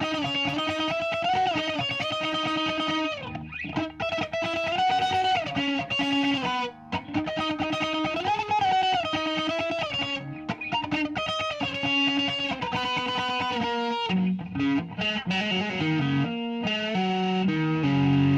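Electric guitar with P90 pickups played through a Caline Hot Mushroom compressor pedal into a solid-state amp: long sustained lead notes with bends and vibrato, then a lower riff of shorter notes from about three-quarters of the way in.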